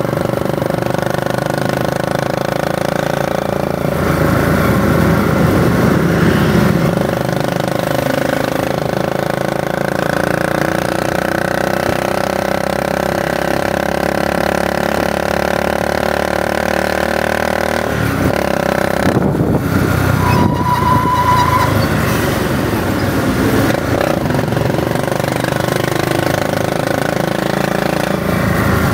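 Motorcycle engine running steadily while riding along, with road and wind noise. The engine note shifts a few times, and a short high steady tone sounds about two-thirds of the way through.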